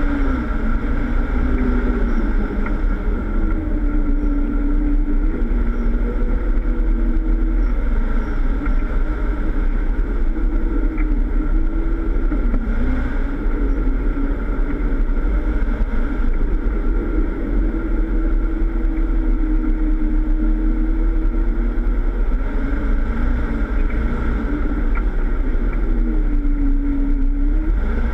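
Jeep Wrangler engine pulling at low revs on an off-road course, its pitch slowly rising and falling as the throttle is eased on and off, over a steady heavy low rumble.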